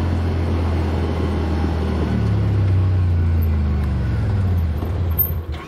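Side-by-side UTV engine running under way, its pitch rising a little about two seconds in, then stopping near the end.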